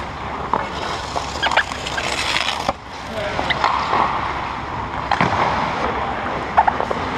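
Hockey skates scraping and carving on rink ice, with scattered sharp clacks of sticks and puck.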